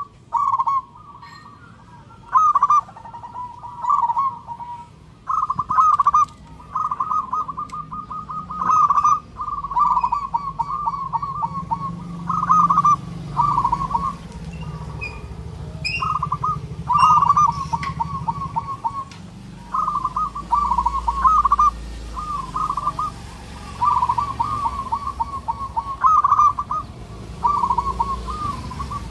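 Zebra dove (perkutut) cooing its song: short, rolling coo phrases repeated every second or so, with brief pauses between.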